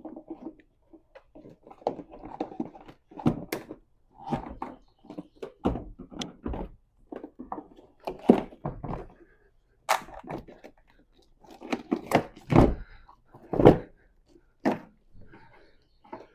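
A series of irregular thunks and knocks, with scraping and handling noise between them; the heaviest knocks come in a pair about two-thirds of the way through.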